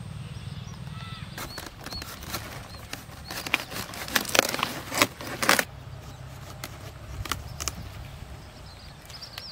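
Crisp crackling and snapping of cauliflower leaves and stalk being handled and cut at harvest, loudest for about two seconds in the middle, over a steady low rumble. A few short high chirps come early on.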